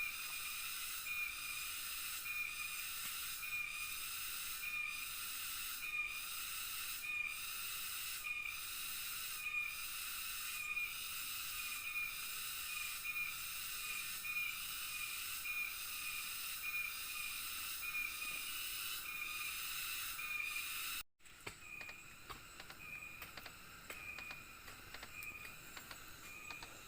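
Nighttime rainforest insect chorus: a steady high shrill hiss with a short high chirp repeating about once a second. Near the end it cuts abruptly to a fainter hiss with scattered light clicks.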